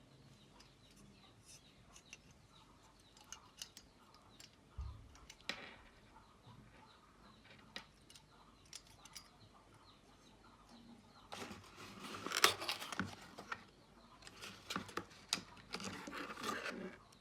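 Hands handling computer parts and packaging: scattered small clicks and taps, then two stretches of rustling and clattering in the second half, the louder one a little past the middle.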